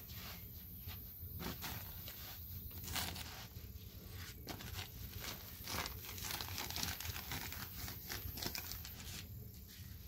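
Soft rustling and many small clicks as hands lift and stretch a paper-thin sheet of byrek pastry dough across a cloth-covered cushion, the handling busiest midway through, over a steady low rumble.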